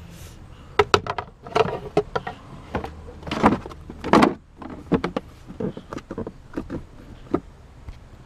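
Fuse-box cover being put back on and handled: a run of irregular clicks, knocks and scrapes, the loudest about four seconds in, thinning out toward the end.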